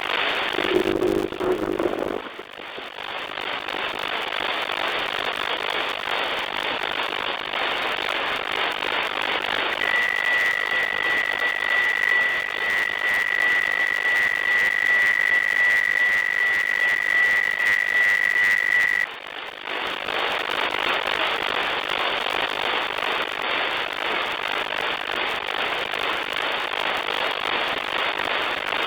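Static hiss from a shortwave receiver tuned to the 40-metre ham band in sideband mode, with no station talking. About ten seconds in, a steady high whistle of a carrier comes in over the hiss, holds for about nine seconds and cuts off suddenly, after which the hiss goes on.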